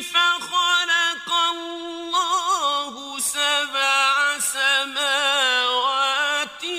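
Male Quran reciter chanting in the slow, melodic mujawwad style. After a few short phrases he holds one long drawn-out, ornamented note with wavering trills, its pitch stepping down.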